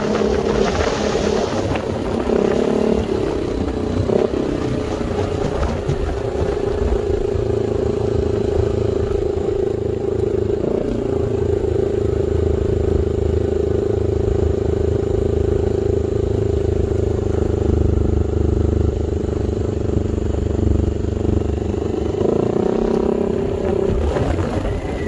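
Yamaha Aerox 155 scooter's 155 cc single-cylinder engine running through a newly fitted aftermarket carbon Villain exhaust, its pitch rising and falling a few times as the throttle is blipped.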